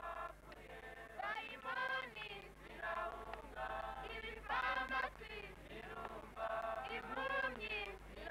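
A mixed choir of young men and women singing a hymn together in phrases, with a low steady hum underneath.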